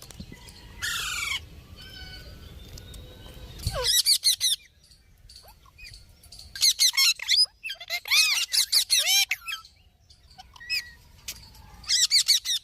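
Parrots calling in bursts of rapid, repeated shrill squawks, with quieter gaps between the bursts. A low rumble runs under the first few seconds.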